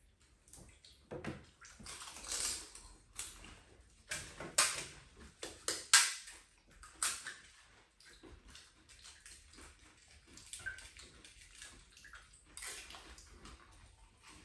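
Golgappas (pani puri) being cracked, dipped in spiced water in steel bowls and eaten fast: irregular short crackles of the crisp shells, splashes and slurps of the water, and clicks against the steel bowls.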